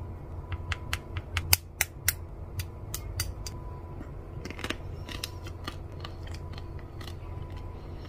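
Irregular sharp light clicks and ticks, thickest in the first few seconds and thinning out later, from sugar-coated fruit on wooden skewers being handled in and around a glass of iced water.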